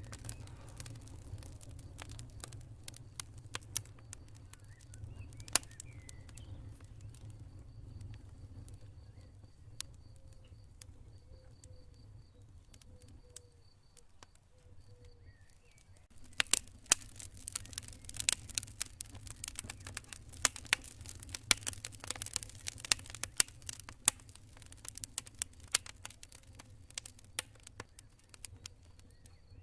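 Wood campfire crackling and popping over a low steady rumble, the pops sparse at first and coming thick and fast from about halfway through. A cricket chirps in steady pulses in the middle.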